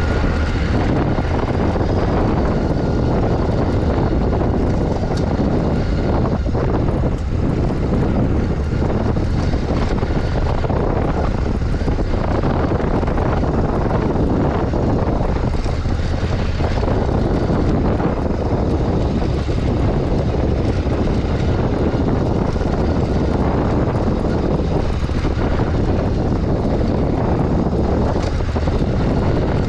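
Honda Africa Twin 1100's parallel-twin engine running steadily under way on a dirt track, mixed with a steady rush of wind on the microphone.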